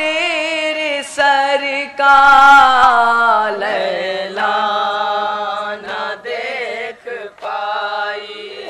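Young male voices chanting an unaccompanied Urdu nauha (Shia lament) into microphones, with long held notes that slide down in pitch and brief breaks between phrases.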